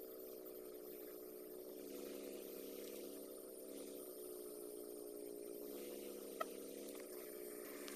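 A steady low hum whose pitch wavers slowly, with one sharp click about six seconds in.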